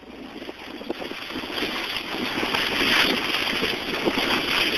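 Skis scraping and hissing over crusty, packed snow during a downhill run, with wind rushing over the microphone; the sound grows louder as speed builds.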